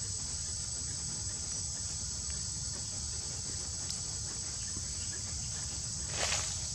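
Steady high-pitched drone of insects with a thin constant tone on top of it, over a low rumble, and a brief rustle about six seconds in.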